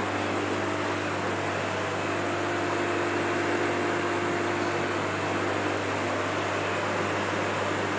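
Steady hum and hiss of an aquarium's aeration: an air pump running and a stream of air bubbles rising through the tank.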